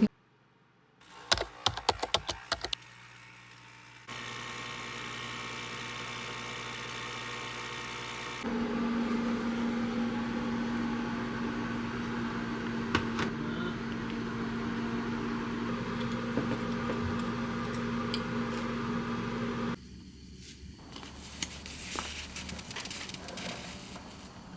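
Quiet room sounds in several edited segments: a few light clicks and knocks in the first seconds, then a steady low mechanical hum, as from an appliance or fan, for about eleven seconds that cuts off abruptly.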